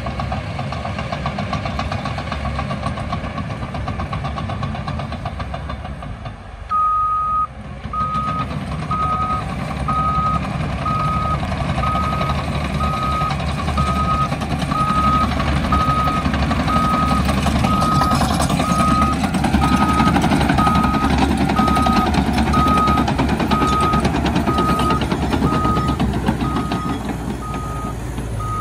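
Cat D6K bulldozer's diesel engine running while its reverse alarm beeps steadily, starting about seven seconds in. The engine grows louder a little before halfway.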